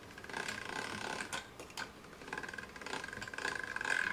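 Hand-cranked chrome pasta machine turning, its rollers and gears giving a steady mechanical whir with fine rapid ticking as a sheet of fresh egg-pasta dough is rolled thin. It runs in two spells of cranking, with a short pause near the middle.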